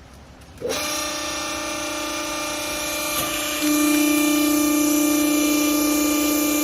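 Hydraulic baler's electric motor and pump switching on under a second in and running with a steady whine, which gets louder about three seconds later.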